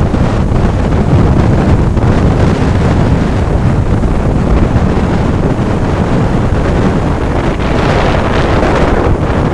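Strong hurricane wind buffeting the microphone in loud gusts, over heavy surf breaking and washing up the beach.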